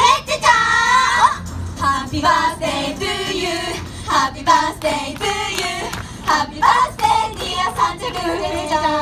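Young female idol group singing a pop song live through handheld microphones over an amplified backing track.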